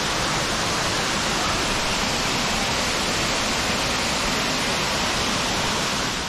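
Steady rush of a waterfall spilling over rock ledges into a pool, an even wash of water noise with no break.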